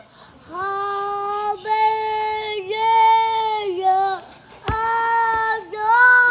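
A toddler singing a wordless, open-mouthed 'aaah', six or so held notes in a row, each about a second long at a fairly steady high pitch with short dips between them. A single knock sounds about two-thirds of the way through.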